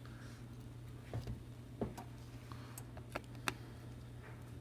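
Faint, sharp clicks and ticks of small repair tools and tiny screws against an iPhone 7's internal metal parts, four or five scattered taps over a steady low electrical hum.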